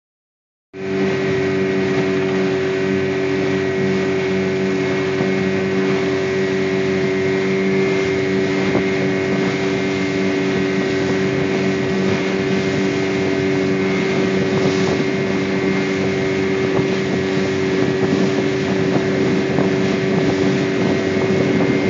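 Small boat's engine running steadily with an even hum, starting just under a second in, with some wind on the microphone.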